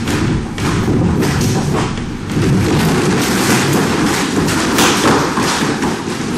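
A room shaking in a seismic test: a continuous low rumble with many rapid knocks and bangs as furniture, bookcases and loose objects rattle, shift and topple.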